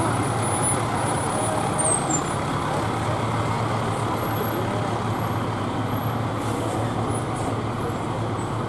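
Heavy fire rescue truck's diesel engine running steadily as the truck rolls slowly past, its sound easing off slightly as it moves away. Other parade vehicles are idling in behind it.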